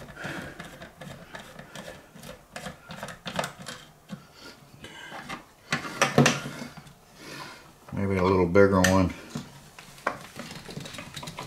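Irregular clicks, taps and scrapes of a small screwdriver working a screw on a plastic ice maker housing, with the plastic unit knocking and sliding on a glass cooktop. The screwdriver is too small for the screw and slips in its head. A short muttered voice comes about eight seconds in.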